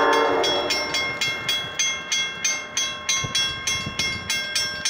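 Rail crossing warning bell ringing steadily, about three strikes a second, as the train's horn dies away right at the start.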